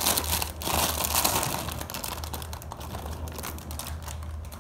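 Clear plastic bags crinkling and crackling as the bagged parts of a PVC figure are handled and unwrapped. The crackling is densest in the first second or so, then thins to scattered crackles.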